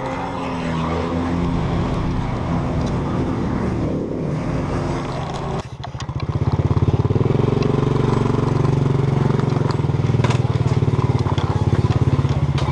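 Motor scooter being ridden, its small engine running under road and wind noise. After a sudden cut about halfway, the engine runs louder and steadier at low speed with a fast, even putter.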